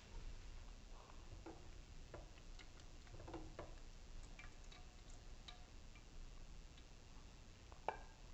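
Faint, scattered clicks and taps of kitchen tongs against a plate and pot while lifting boiled mustard greens, with one sharper click near the end.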